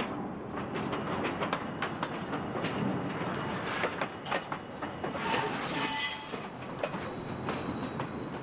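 Electric interurban train running over rail joints and switches: a steady rumble with irregular wheel clicks. About six seconds in there is a brief high-pitched wheel squeal on the curving track.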